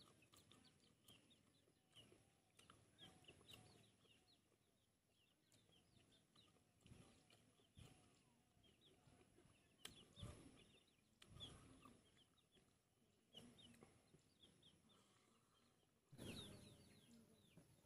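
Quiet eating: a few soft slurps and chews of pig intestine, the loudest about ten, eleven and sixteen seconds in. Birds give many faint short chirps in the background.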